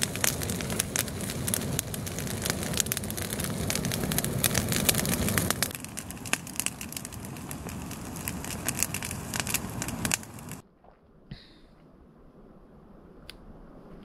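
Dry twigs crackling and rustling on crumpled newspaper as they are piled up to lay a campfire, dense with small snaps. It cuts off suddenly about ten and a half seconds in, leaving only a couple of faint clicks.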